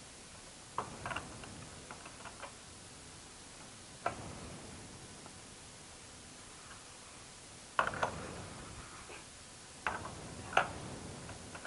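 Irregular clicks and knocks of a plastic wheel being pushed and worked onto the metal axle of a new shredder by hand: a few about a second in, a single knock around four seconds, and a louder group from about eight seconds on.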